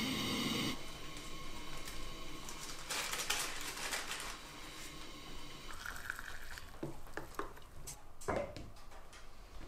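Gas camp-stove burner hissing for about the first second, then light kitchen handling sounds of cups and coffee-making gear: a short rushing, splashy patch and a few scattered clicks and knocks.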